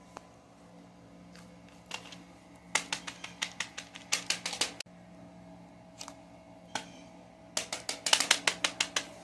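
Rapid runs of sharp clicks, two bursts of several clicks each, the second louder, with a few single clicks between them over a steady low hum.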